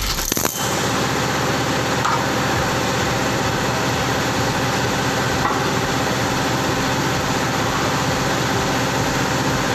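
Aluminium-cutting circular saw running free with its blade spinning and not cutting, a steady machine hum. There is a brief clatter in the first half-second.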